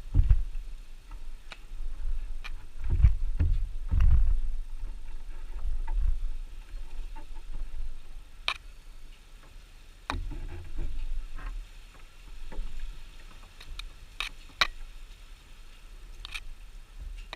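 Irregular knocks, clicks and scrapes of wooden beehive parts and tools being handled, with low rumbling thuds from handling near the microphone.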